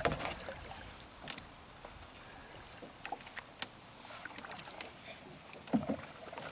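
Canoe being paddled on calm water: the paddle dips and drips with small splashes and light clicks, and there is a brief louder sound near the end.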